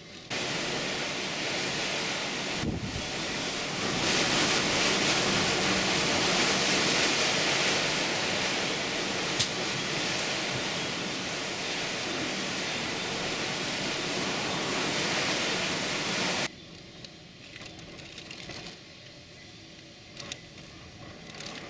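Hurricane-force wind blowing hard, a steady loud rush that strengthens about four seconds in. It cuts off suddenly after about sixteen seconds to a much quieter background with a few faint knocks.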